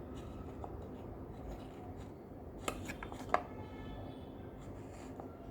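Faint handling sounds of chocolate sauce being spread on a biscuit, with two light clicks a little past the middle.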